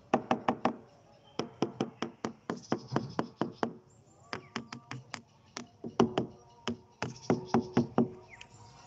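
Rapid runs of knocks on the ribbed side of a black plastic water storage tank, several a second in bursts with short pauses, each with a short hollow ring. It is tapped to check by sound whether it holds water.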